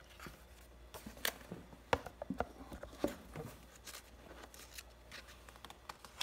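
Pages of a hardcover picture book being turned and handled: a scatter of short paper rustles and light taps, busiest in the first half.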